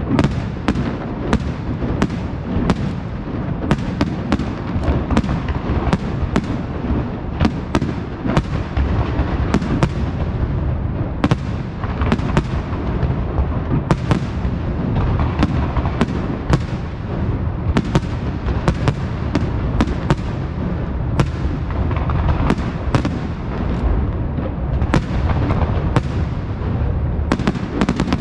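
Aerial firework shells bursting in a dense, continuous barrage: many sharp bangs in quick succession over an unbroken low din of explosions.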